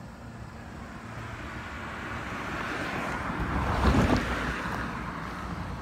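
A minivan driving past close by: its tyre and engine noise swells over a few seconds, peaks about four seconds in with a few heavier thumps, then fades.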